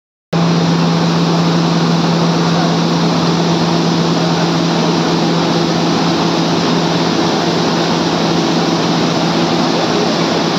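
Grain-cleaning machinery running steadily: a constant loud rush of mechanical noise with a steady low motor hum under it, starting just after the opening.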